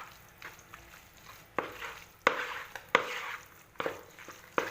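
Pasta being stirred through a cheese sauce: a utensil knocks against the pot or bowl about five times in the second half, each knock followed by a short swish of the pasta moving in the sauce.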